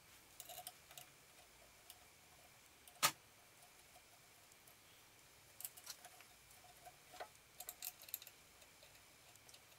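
Faint metallic clicks and taps from the internal parts of an Atlas 7B metal shaper as the rocker arm inside the main casting is handled, with one sharp knock about three seconds in and small clusters of clicks near the start and around six and eight seconds.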